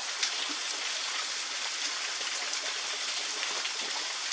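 Small waterfall spilling steadily down a rock face, an even hiss and patter of falling water.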